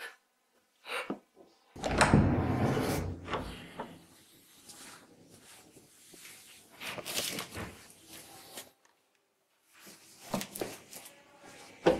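Thumps, rustles and clicks of someone moving about and handling things in a small room. The loudest is a heavy thump with rustling about two seconds in, and there are sharp knocks near the end.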